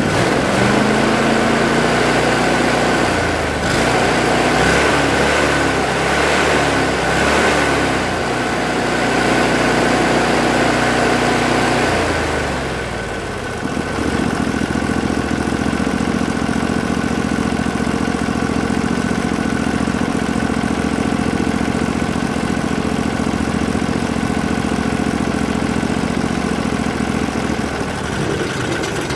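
Briggs & Stratton Vanguard V-twin engine running on a bench, test-run after its ignition coils were refitted. For the first twelve seconds or so its speed is worked up and down by hand at the throttle; it then settles into a steady run.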